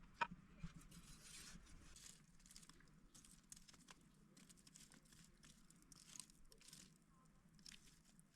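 Faint rustling and crinkling, with scattered sharp clicks; the loudest click comes about a quarter second in.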